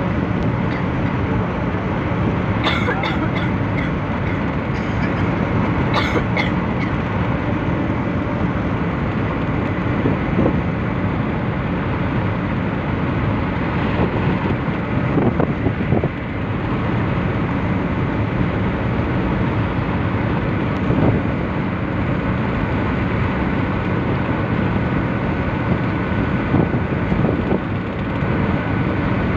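Steady road and engine noise heard inside a car cruising at highway speed. A few short sharp clicks come about three and six seconds in.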